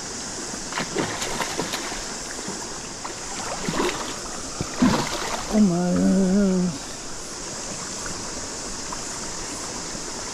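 Hooked brown trout splashing and thrashing at the surface of a shallow river as it is brought to the net, several short sharp splashes over the steady rush of the stream. A man's voice lets out one held sound a little past halfway.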